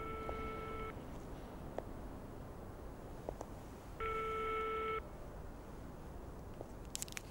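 Telephone ringback tone heard through a payphone receiver: two steady one-pitch tones, each about a second long and four seconds apart, while the call rings unanswered. Faint clicks and a brief crackle on the line near the end.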